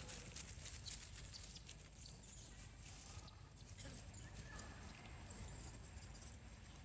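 Faint forest ambience: quick faint high ticking, with a few short high-pitched chirps near the middle and toward the end.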